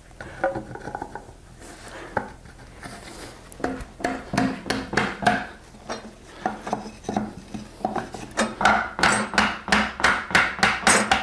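Series of wooden knocks as a snug-fitting wooden hub is worked into the end of a hollow hexagonal wooden blank. The knocks come sparsely at first, then quicken to about three a second near the end.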